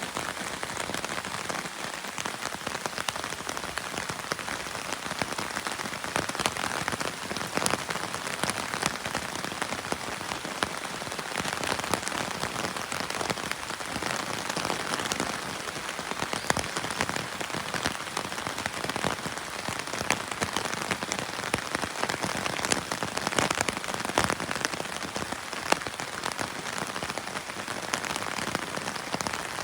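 Steady rain falling and pattering on surfaces, with many separate drops ticking through the hiss.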